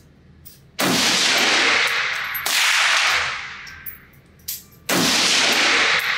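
Three rifle shots from a Nemo Arms Battle Light Rifle chambered in 6mm ARC, roughly two seconds apart. Each is a sudden loud crack that rings on for over a second in the indoor range, with a few light clicks between shots.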